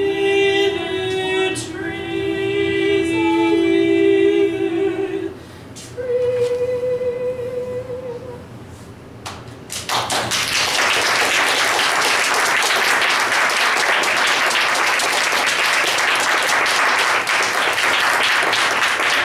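Unaccompanied female singing in long held notes that end about five seconds in, followed by one shorter note. About ten seconds in, the audience breaks into steady applause that continues to the end.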